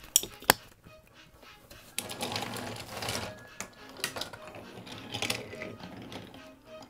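Wooden toy train engines handled and rolled along wooden track: a couple of sharp clicks near the start, a clattering rattle of wheels over the track about two seconds in, and more clicks as engines are set down on the rails.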